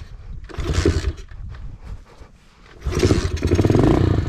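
Mini moto's small engine revving in short, uneven blips, then running louder and steadier from about three seconds in, with a brief rise in revs near the end.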